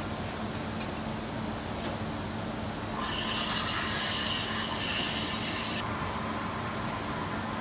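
Espresso machine steam wand hissing into a stainless steel milk pitcher for about three seconds, starting about three seconds in and cutting off sharply, over a steady low hum.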